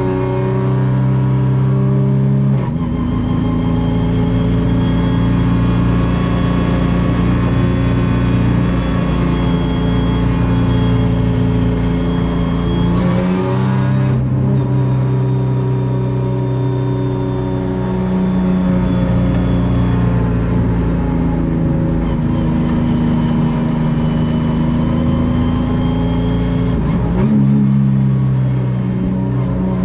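Sprint Race Camaro race car's V6 engine heard from inside the cockpit, running hard at a steady high pitch. The engine note changes abruptly about three seconds in, again around fourteen seconds, and near the end.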